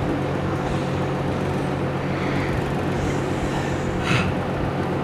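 Steady hum and rush of air from an electric fan running in the room, with a short faint knock about four seconds in.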